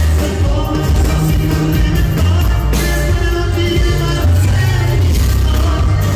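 A regional Mexican band playing a corrido live through a large PA, with heavy bass and a singer's voice.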